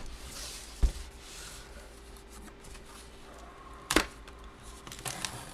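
Hands handling a cardboard box and its packaging: faint rustling, a dull thump about a second in and a sharp knock about four seconds in.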